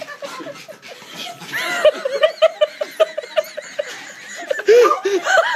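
People laughing: quiet for the first second and a half, then repeated short bursts of laughter from more than one voice, overlapping, with a few faint thumps among them.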